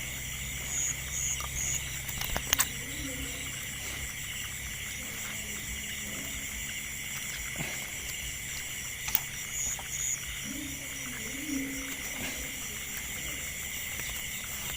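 Night chorus of insects and frogs: steady high trilling throughout, with a few sharp clicks.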